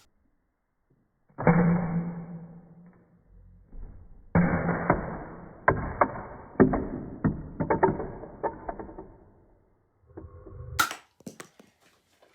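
Muffled, edited-in sound effects or music: a sudden hit about a second and a half in, then a run of sharp knocks over about five seconds, and a short pitched tone near the end.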